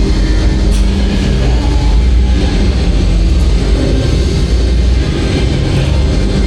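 Voltron Nevera roller coaster train heard from its front row, a steady low rumble with a few held low tones, under themed ride music.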